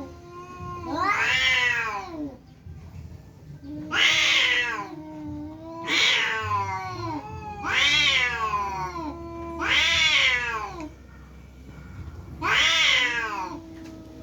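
Two domestic cats caterwauling in a fight standoff: long wailing yowls that rise and fall about every two seconds, six in all. A lower, steady drawn-out moan is held between them.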